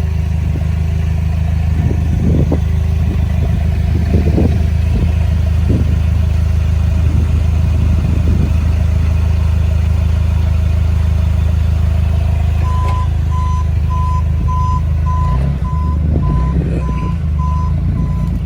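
Steady low drone of a running vehicle engine and road noise. About two-thirds of the way through, a reversing beeper starts, sounding short, even beeps a little under two a second.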